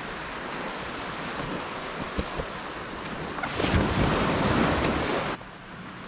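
Small waves breaking and washing up a sandy beach, with wind on the microphone; the wash swells louder about three and a half seconds in. The sound drops off suddenly near the end.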